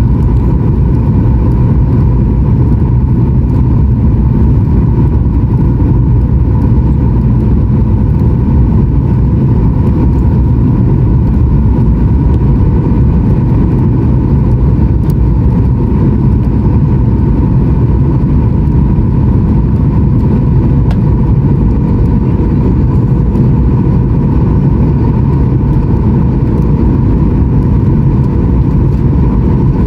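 Steady cabin noise of a Boeing 737-900ER on final approach, heard from a window seat beside the wing: a loud, even rumble of airflow and CFM56-7B engines with a steady hum and a higher whine held above it, unchanging throughout.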